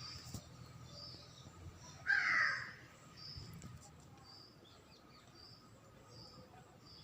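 A crow caws once, harshly, about two seconds in. Behind it runs a faint series of short, high chirps, repeating evenly.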